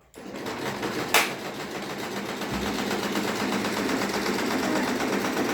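Usha Janome electric sewing machine starting up and running steadily, with a single sharp click about a second in.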